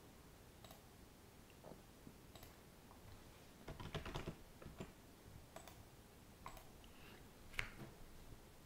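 Faint clicks of a computer keyboard being typed on, spaced out, with a quick run of keystrokes about four seconds in.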